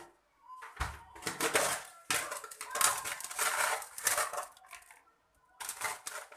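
Irregular clattering and scraping of kitchen utensils against cookware, in uneven bursts from about a second in until about five seconds in, with a short burst near the end.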